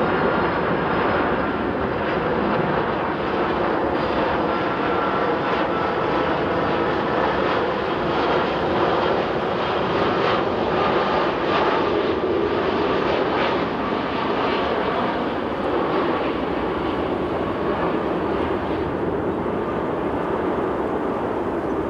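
Twin GE CF6 turbofan engines of a Boeing 767-300ER airliner on final approach: a steady jet rumble with a faint whine, easing slightly in the last few seconds.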